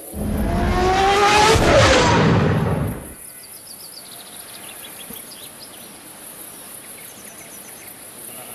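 Kawasaki Ninja ZX-12R's inline-four engine passing at high speed: a loud, rising engine note that drops sharply in pitch as it goes by, about two seconds in, then fades out within a second. Birds chirp faintly afterwards.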